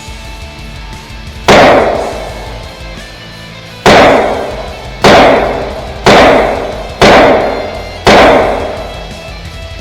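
Six shots from a Ruger 9mm pistol-caliber carbine, each echoing for about a second: a single shot, a pause of about two seconds, then five more at roughly one a second.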